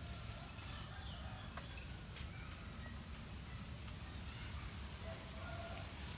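A few short, faint clucking calls from a chicken over a low steady rumble of outdoor air.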